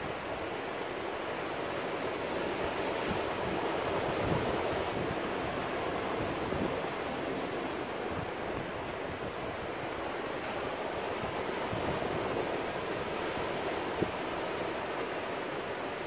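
Surf breaking and washing over a rocky shore: a steady rush of waves and foam that swells a little a few seconds in and again later.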